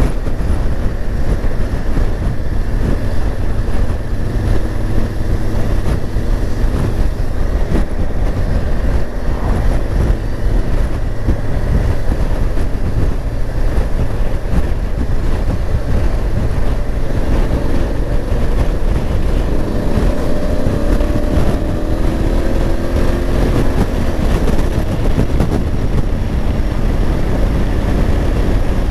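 Honda Africa Twin motorcycle's parallel-twin engine running at road speed, with wind buffeting the microphone. About two-thirds of the way through, the engine note climbs several times in a row as the bike accelerates.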